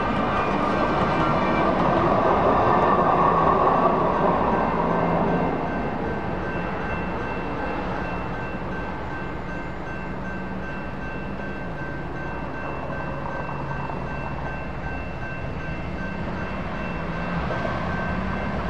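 Siemens Duewag U2A light rail train passing over a grade crossing, loudest for the first five seconds or so and then fading away. A railroad crossing's electronic bell rings steadily throughout. Road vehicles pull away near the end.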